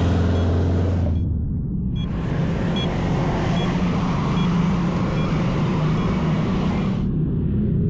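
A motor vehicle's engine running close by amid road traffic noise. A faint short beep repeats about every 0.8 seconds.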